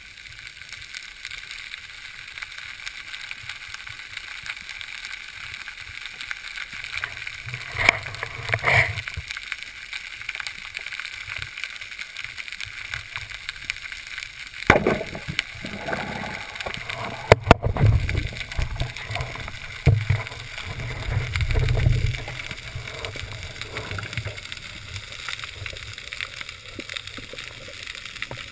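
Underwater sound from a camera in its housing on a spearfishing dive: a steady water hiss, with low rumbles and knocks from the diver's movements. A couple of sharp clicks come about fifteen and seventeen seconds in.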